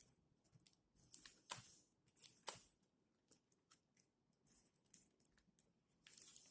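Light clicks and rustling of a homemade cardboard gun being handled, with two sharper snaps about a second and a half and two and a half seconds in.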